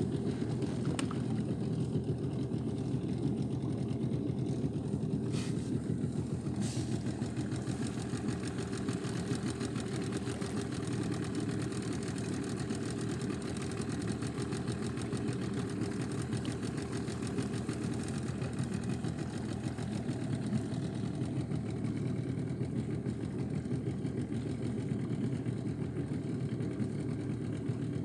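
Small boat motor running steadily, an even engine drone with no change in speed.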